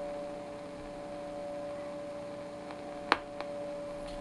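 Tram Titan tube CB base station receiving a quiet channel: a steady hum over light hiss, with a sharp click about three seconds in and a fainter one just after.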